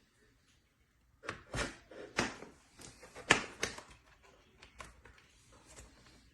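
Handling noise from a cable being plugged into a USB-C docking station and the dock being moved: a quick run of sharp clicks and knocks about a second in, then lighter taps.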